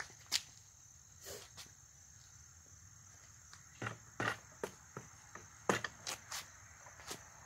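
Scattered sharp clicks and knocks as a hydraulic floor jack and the wooden block on its saddle are handled, several close together in the second half. Under them runs a steady high chirring of crickets.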